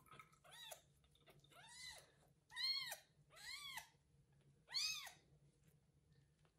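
Young kitten meowing loudly and over and over, five high calls that each rise and fall in pitch, the loudest about three and five seconds in.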